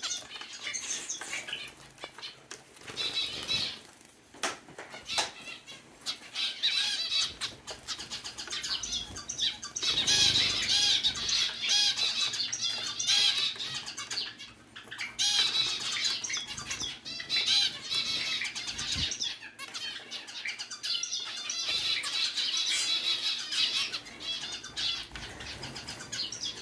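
Zebra finches bathing in a running pet water fountain: wet wing-fluttering and splashing in bursts, over the trickle of the fountain, with the finches calling throughout.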